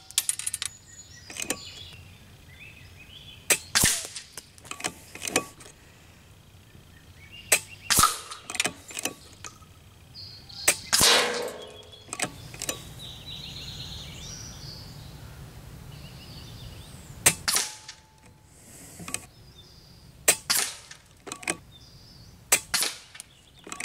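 Kalibrgun Cricket 2 Tactical .22 PCP air rifle firing several shots, each a sharp report, several followed a fraction of a second later by a second sharp sound, likely the pellet hitting the small targets.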